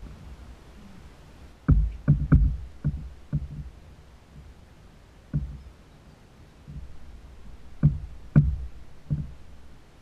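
Irregular knocks and thumps on a plastic sit-on-top kayak hull: a quick cluster of five about two seconds in, a single knock a little past five seconds, and three more near the end.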